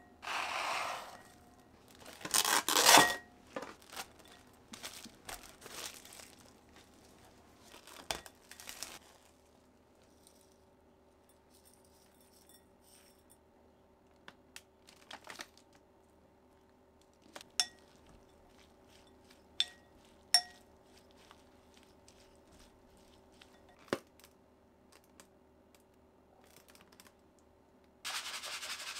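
Kitchen handling sounds while preparing food: a short rustle, then a louder tearing or crinkling noise in the first few seconds. Scattered light clicks and taps follow, a few of them ringing briefly like a utensil against a dish. Another rustle comes near the end, over a faint steady hum.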